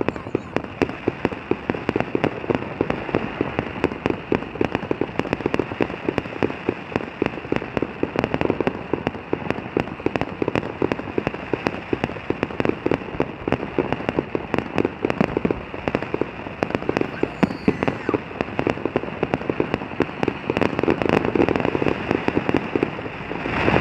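Fireworks crackling: a dense, unbroken run of rapid small pops, like rain on a roof.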